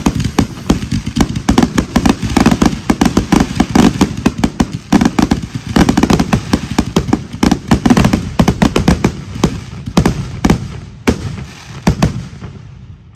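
Fireworks barrage: aerial shells bursting in rapid succession, many reports a second. Near the end the bursts thin to a few separate bangs and the sound dies away.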